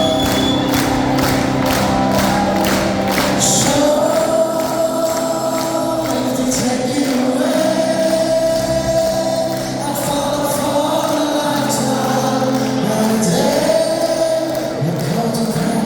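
A band playing live, with a lead vocal holding long notes over the band.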